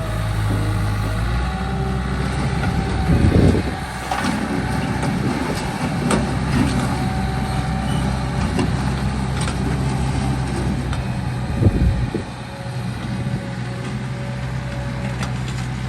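Small bulldozer's diesel engine running steadily, with two louder surges of noise: one about three seconds in and a shorter one near twelve seconds.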